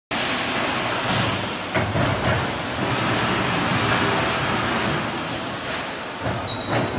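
QT12-15 concrete block-forming machine running through its moulding cycle: a loud, steady mechanical clatter with several sharp knocks and clanks as the freshly formed bricks are pushed out on their pallet.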